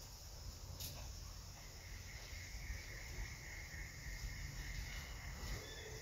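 Outdoor insect ambience: steady insect buzzing, with a thin, even insect tone joining about two seconds in and holding almost to the end. There is one short click about a second in, over a constant low rumble.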